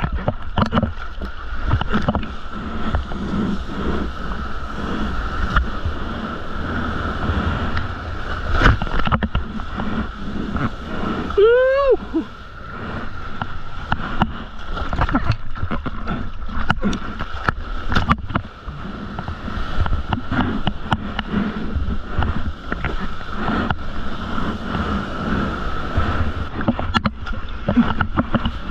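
Seawater splashing and sloshing right against a mouth-mounted action camera while surfing and paddling a surfboard, with many small splashes and slaps. About eleven and a half seconds in, a short pitched call rises and falls once.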